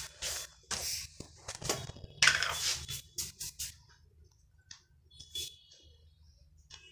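Short rubbing and scraping handling noises, the loudest about two seconds in, as moisturiser is got ready to put on a face; after that only faint taps and clicks.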